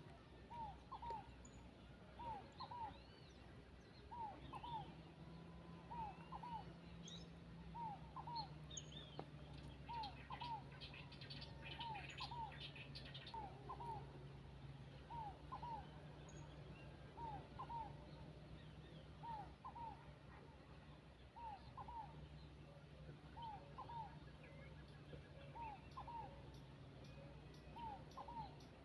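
Tierrelita, a small ground dove, cooing faintly: a short two-part call repeated steadily about every second and a half. Other birds chirp faintly behind it, over a steady low hum.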